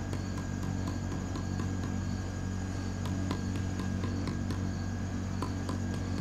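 Light, uneven hammer taps shaping a silver filigree flower against a wooden stake, about two to three taps a second, over a steady low hum.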